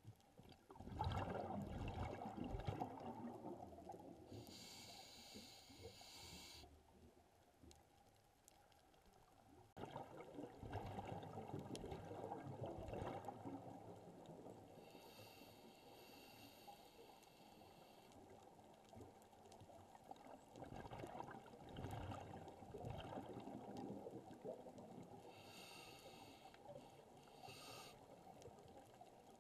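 Scuba diver's breathing through a regulator, heard underwater: a hiss of inhalation about every ten seconds, alternating with gurgling rushes of exhaled bubbles.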